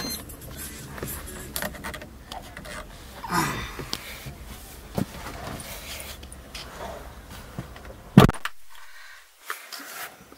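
Small clicks and a jingle of keys inside a parked Maruti Suzuki Celerio with its engine off, then a car door shutting with a loud thump about eight seconds in, after which the outside hum drops away.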